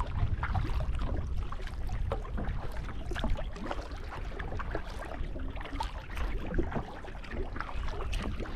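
Wind rumbling on the microphone over light water sounds, with scattered small knocks and clicks.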